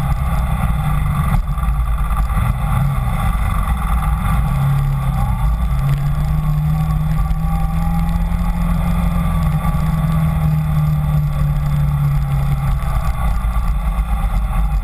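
Kawasaki Ninja 250's parallel-twin engine running while the motorcycle is ridden, its note shifting in the first few seconds, then holding steady before dropping away near the end, over a steady low wind rumble on the microphone.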